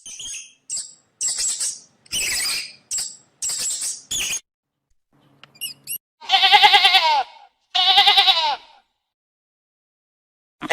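A sheep bleating twice, each bleat a wavering call about a second long. Before the bleats comes a run of short, high squeaky calls.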